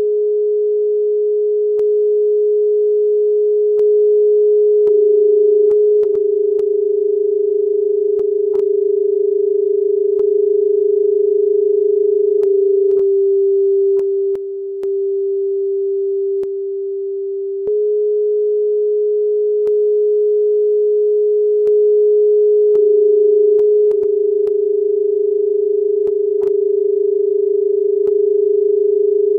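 Minimal electronic drone: a loud, pure sine-like tone that steps between a few close pitches, with faint scattered clicks and a slight pulsing in loudness. It dips quieter for a few seconds near the middle, and the same sequence starts over about eighteen seconds in.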